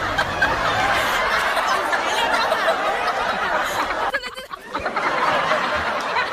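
Many people laughing and chuckling at once, a continuous mass of laughter that drops away briefly about four seconds in.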